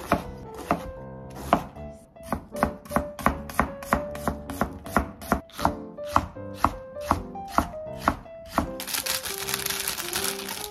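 Kitchen knife chopping green peppers and onion on a cutting board, quick regular strokes about three to four a second. Near the end the chopping stops and a plastic food package crinkles as it is handled. Light background music plays underneath.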